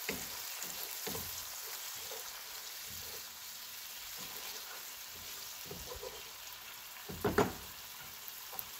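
Onions, green chilli and ginger-garlic sizzling in oil in a non-stick wok, with soy sauce and white vinegar just stirred in, and a wooden spatula scraping the pan. A single loud knock about seven seconds in.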